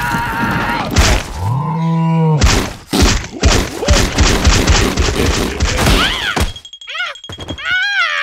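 Cartoon sound effects: a held scream, a hard thud about a second in, then a run of heavy thumps and knocks as a big dung ball rolls over the character. Near the end comes a high-pitched, rapid giggling voice.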